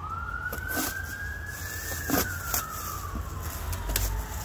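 An emergency-vehicle siren wailing, its pitch rising slowly for about two seconds, falling for the next two and starting to rise again at the end. A few short clicks and crackles come from plastic wrap being cut.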